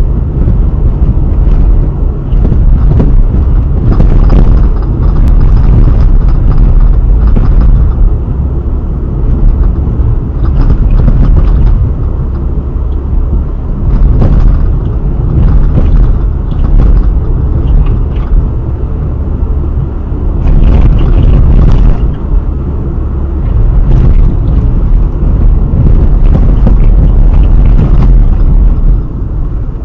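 Car driving over the road with a steady low rumble, and irregular knocks and clunks coming through every few seconds: the front right suspension noise being recorded.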